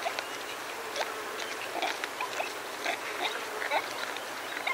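Warthogs feeding on short grass at close range: a steady run of crisp clicks from grass being cropped and chewed, mixed with short grunts.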